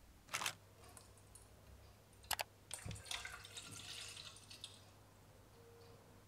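A sharp click, then two quick clicks, followed by about two seconds of water dripping and splashing. A low steady hum runs underneath.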